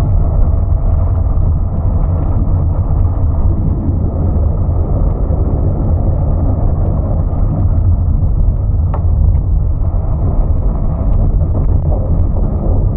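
Steady low rumble of wind buffeting the microphone on a boat's open deck, with one short click about nine seconds in.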